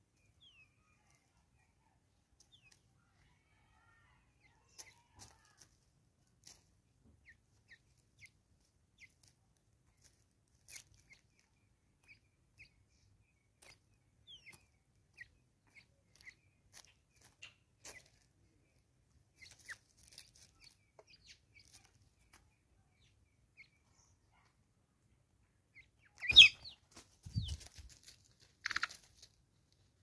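Natal spurfowl close to the microphone: faint short chirps and taps scattered throughout, then, about four seconds before the end, a loud burst of calls and knocks.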